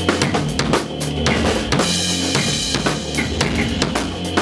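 Music: a busy drum beat of kick, snare and rim hits over a repeating low bass line, from a sketch in 5/4 time.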